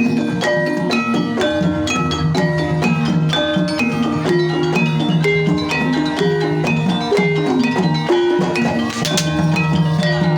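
Banyumasan gamelan music for tayub: struck mallet-percussion instruments play a busy, interlocking pattern of short ringing notes in a steady rhythm, with drum strokes, including one sharp stroke about nine seconds in.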